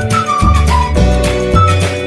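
Background music: a high melody line that slides between notes, over steady bass notes and a regular beat.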